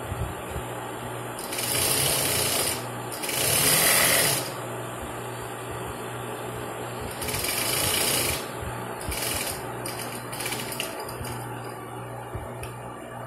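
Industrial sewing machine stitching in three runs of about a second each, then a few shorter bursts, with a steady motor hum between the runs.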